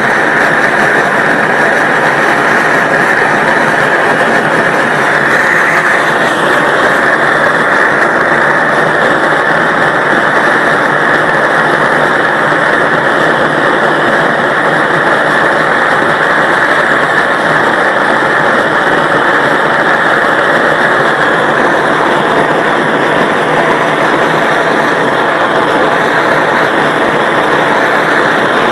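Large gas torch blasting a steady jet of flame, a loud continuous hissing rush. The tone of the hiss shifts slightly about six seconds in.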